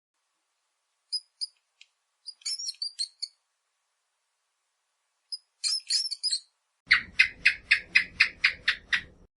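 A small bird calling: short groups of high, quick chirps, then near the end a rapid even series of about five notes a second.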